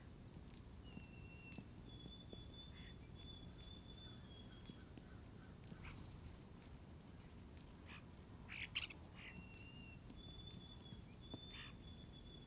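European starlings calling faintly: thin, level whistles held for a second or two, and a short burst of sharp clicks about two-thirds of the way through.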